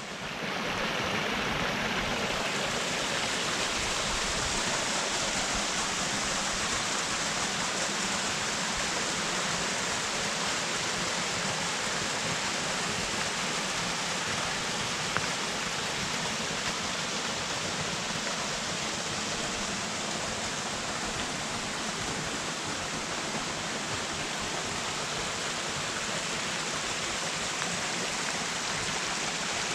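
Steady rushing of a small two-step waterfall, about 7 m high, falling into its stream, with one faint click about halfway through.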